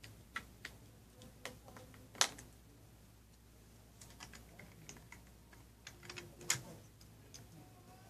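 Plastic Lego pieces clicking and clattering as they are handled and fitted together. Scattered sharp clicks, the loudest about two seconds in and again about six and a half seconds in.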